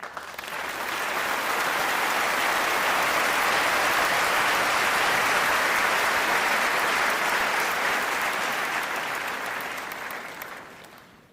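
Applause, starting suddenly, swelling over the first couple of seconds, then fading out near the end.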